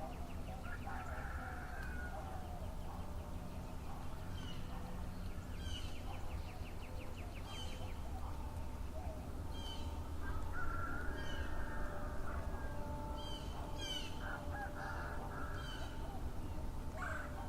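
Domestic fowl calling, with longer calls about a second in and again around two-thirds of the way through, while small birds chirp repeatedly over a steady low hum.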